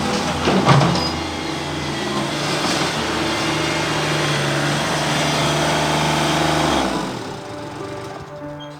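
Ditch Witch SK800 mini skid steer engine running as the machine works a full-size Bobcat bucket, with a loud metallic knock about a second in. The engine sound falls away near the end, leaving background music.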